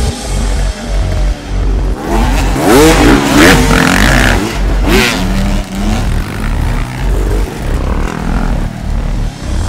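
Several dirt bike engines revving and accelerating together, their pitches rising and falling over one another, loudest about a third of the way through to halfway.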